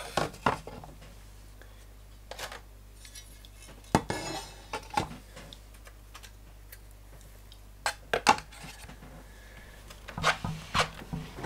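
Scattered knocks and clinks of a Tandberg Sølvsuper 12 radio amplifier's metal chassis and panels being handled and shifted on a workbench, the loudest about eight seconds in and a quick cluster near the end.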